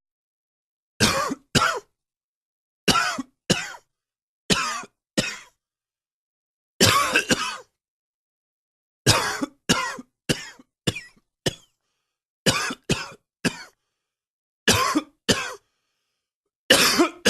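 A man coughing in repeated fits of two to five short, sharp coughs, with pauses between fits. It is a wheezy cough that he puts down to spring pollen and the changing weather.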